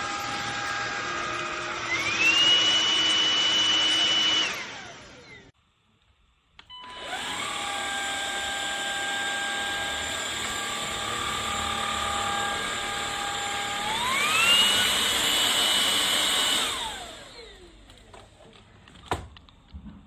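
MONSGA MV3 cordless stick vacuum's motor running with a steady whine that climbs quickly to a higher speed, then shuts off. It starts again, steps up to the higher speed once more, and winds down with a falling whine, followed by a single click.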